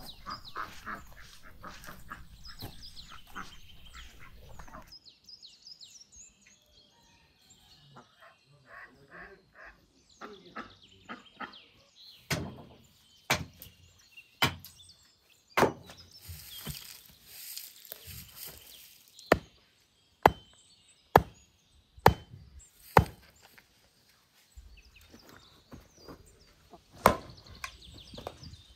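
Axe blows splitting firewood on a wooden chopping block: a run of sharp single strikes, roughly one a second.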